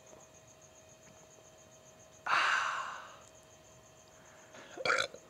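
A man lets out a long, satisfied breathy 'ahh' after a swig of canned beer; it comes suddenly about two seconds in and fades over about a second. A couple of short breathy sounds follow near the end.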